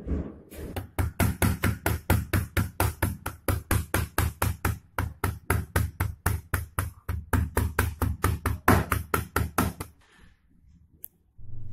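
Kitchen knife rapidly mincing garlic and ginger on a plastic cutting board: a steady run of knocks about four a second, stopping about ten seconds in.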